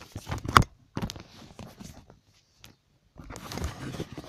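A sheet of paper being handled, rustling and crackling, with a sharp crackle about half a second in and a longer rustle near the end.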